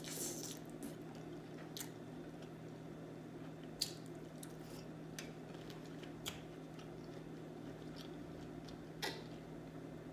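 Close-miked mouth sounds of eating soft seafood in sauce: wet chewing and lip smacks, with sharp clicks every second or two, the loudest about four seconds in.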